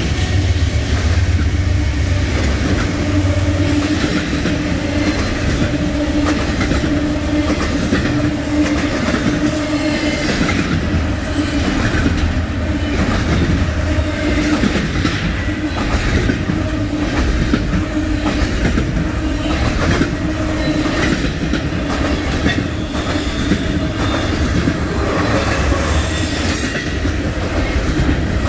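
Double-stack intermodal well cars of a freight train rolling past at speed: a steady rumble of steel wheels on rail, with irregular clacks over the rail joints and a steady wheel squeal.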